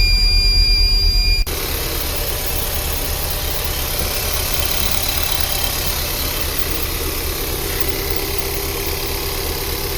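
Freshly reassembled car engine idling on its first start. A steady high-pitched electronic buzzer beeps over it for about the first second and a half, then stops.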